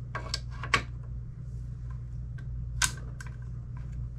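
A few sharp clicks and knocks of AR-15 rifle parts being handled and fitted: two about half a second apart near the start, the second the loudest, and two more about three seconds in, with fainter ticks between. A steady low hum runs underneath.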